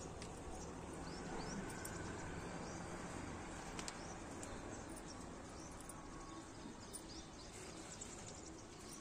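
Small birds chirping now and then over a steady outdoor background hiss, with a few faint clicks and rustles as okra plants are handled and pods picked.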